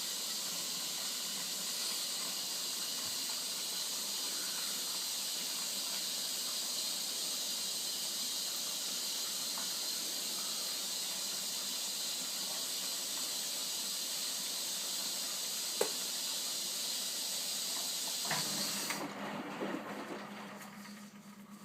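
Bendix 7128 washing machine filling with water through its inlet valve: a steady hiss that cuts off about 19 seconds in, as a low hum starts.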